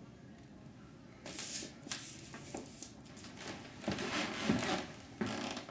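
Crumpled paper burger wrapper crinkling and rustling under hands, in several short bursts.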